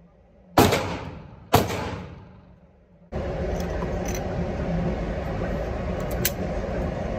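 Two gunshots about a second apart in an indoor shooting range, each ringing and echoing as it dies away. About three seconds in, a loud steady rushing noise starts abruptly and carries on with a few faint clicks in it.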